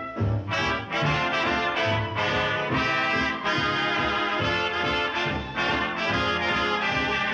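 Lively orchestral cartoon music led by brass, with trumpets and trombones playing over a pulsing bass line.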